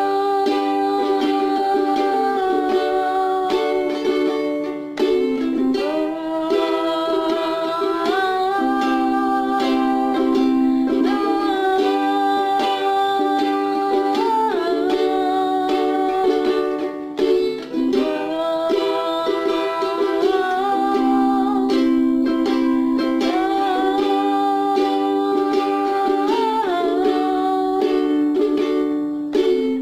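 Music played on a plucked string instrument, with a held melody line over a repeating chord pattern.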